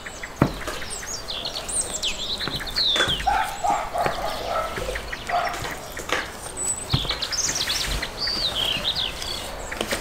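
Birds chirping and singing in short gliding phrases, with a short run of lower animal calls a few seconds in. A few sharp knocks, the loudest about half a second in, as pieces of beef tail are set down on a metal tray.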